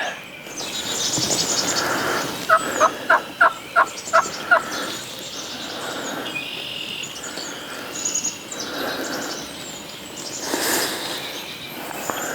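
Wild turkeys calling at close range: a run of about seven loud, evenly spaced notes about two and a half seconds in. Songbirds chirp in the background throughout.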